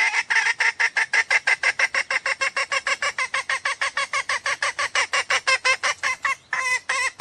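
Jungle fowl lure call: a rapid, even series of short clucking notes, about seven a second, breaking into a few longer notes near the end.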